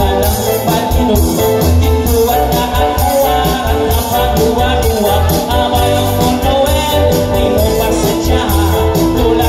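Live band playing through a PA sound system: electric guitars, bass and drums keeping a steady beat, with a voice singing over them.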